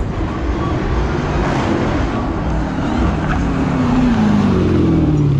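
Dodge Hellcat's supercharged 6.2-litre V8 at full throttle during a hard launch. The loud engine note falls in pitch over the last couple of seconds.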